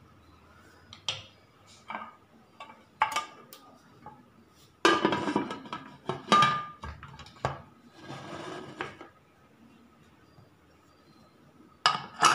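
Aluminium pressure cooker being closed: light metal clinks, then loud clanks about five to seven seconds in as the lid goes on and is locked shut, and a sharp metallic clink near the end as the whistle weight is set on the vent.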